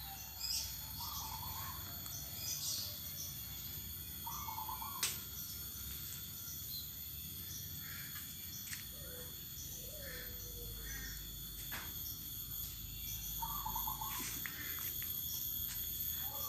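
Birds calling in short, scattered phrases over a steady high-pitched insect drone, with a couple of sharp clicks.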